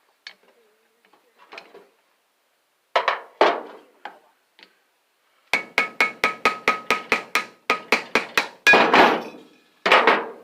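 Hammer blows on an electric motor's metal housing to knock its back end cover off. A few separate strikes, then a quick run of about five ringing strikes a second, then two heavier blows near the end.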